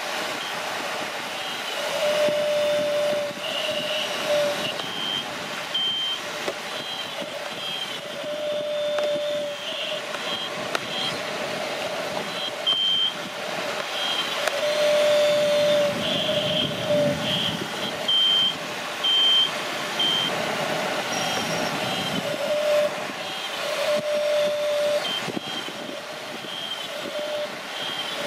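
Toy RC excavator working in sand, its electronics giving short, steady electronic beeps in two pitches, a low one and a high one, repeating at times about once a second, over a steady hiss.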